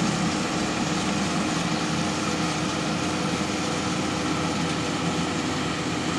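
Rice combine harvester running steadily: a constant engine drone with the hum of its cutting and threshing machinery.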